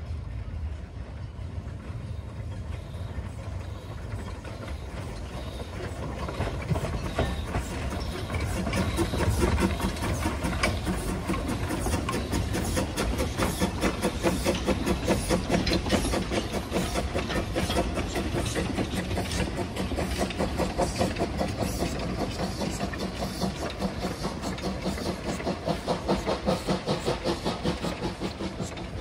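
Narrow-gauge saddle-tank steam locomotive working past with wooden carriages. It grows louder about six seconds in, then keeps a steady rhythm of exhaust beats.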